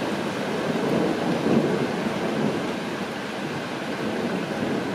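Steady rain with a rumble of thunder swelling and fading about one to two seconds in.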